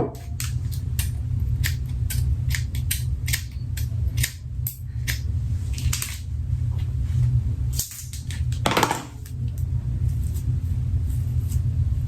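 Irregular small clicks and snips from hair-styling tools being handled over a steady low hum, with a short hiss about nine seconds in.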